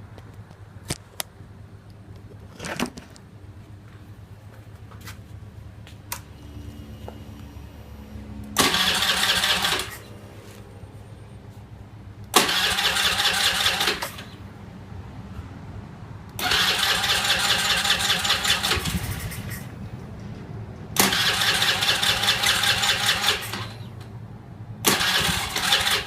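Honda Zoomer-X scooter's electric starter cranking the fuel-injected 110 cc single-cylinder engine in five separate bursts of one to three seconds each. The engine does not catch: it is a hard-start / no-start fault.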